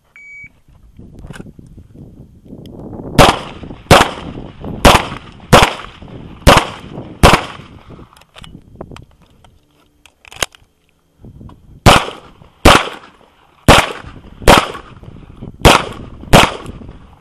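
Shot-timer start beep, then handgun shots in two strings of six, each a little under a second apart. Between the strings there is a pause of about four seconds with one sharp click.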